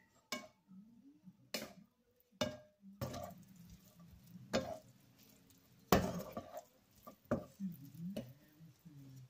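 Wooden spatula stirring food in a non-stick frying pan: irregular knocks and scrapes against the pan, a few spaced strokes at first, then busier stirring from about three seconds in, the loudest knock about six seconds in.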